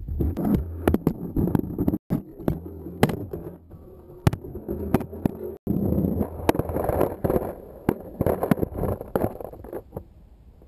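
Skateboard wheels rolling over rough pavement, heard from a camera fixed to the deck: a steady low rumble with frequent sharp clacks and knocks as the board rides over bumps. The sound cuts out briefly twice and grows quieter near the end.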